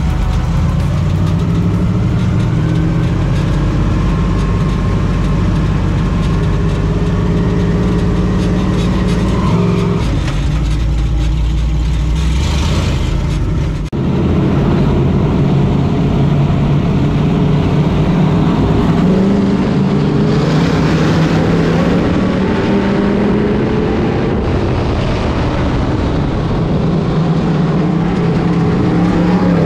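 Onboard sound of a 602 Sportsman dirt modified's GM 602 crate V8. It first runs at pace-lap speed in a steady drone, then after an abrupt cut about halfway through it runs hard at race speed, its pitch rising and falling as the car is driven around the dirt oval.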